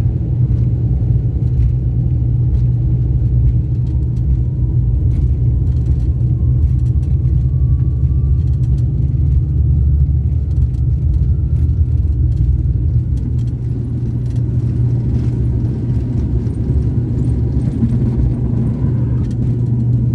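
Airliner cabin noise during taxi: a steady, loud low rumble of the engines and rolling, with a faint whine slowly rising in pitch over several seconds.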